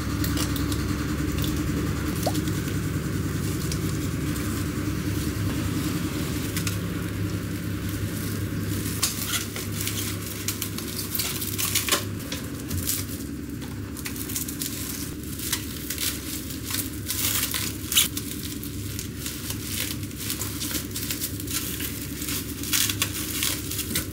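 Plastic cling film crinkling and crackling as it is folded and pressed tightly around a lettuce-wrapped sandwich, in many short sharp crackles that thicken about a third of the way in. A steady low hum runs underneath.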